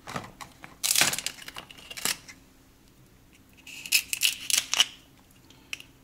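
Kitchen shears cutting through the shell of a cooked king crab leg: crunchy cracking snips in several bursts, one with a short squeak near the middle, and a few sharp clicks of the blades near the end.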